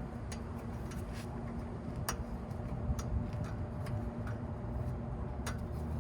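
Light metal clicks, several of them spaced irregularly about a second apart, as a part is worked back onto a disc brake caliper after a brake pad change, over a faint steady low hum.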